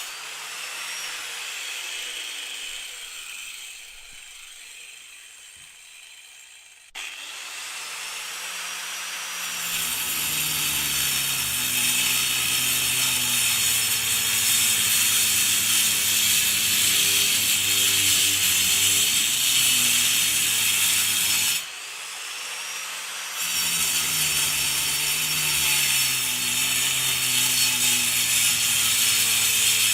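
Angle grinder cutting concrete. It winds down slowly with falling pitch at first, then is switched on again about 7 seconds in and spins up into a loud, steady cut. It stops sharply a little after 20 seconds and restarts about a second and a half later.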